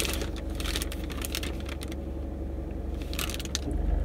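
Paper food bag crinkling and rustling as it is opened and handled, in quick crackly clicks that let up for about a second midway, over a low steady hum.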